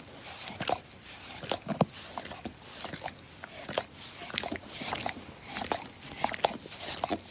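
Dog licking: a steady run of wet smacks and slurps, a few licks a second at an uneven rhythm.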